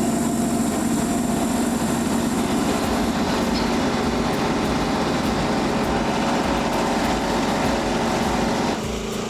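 Frontier OS27 portable band sawmill running: its gas engine drives the band blade at a steady pitch, the blade sawing through a log. The sound drops to a lower level near the end.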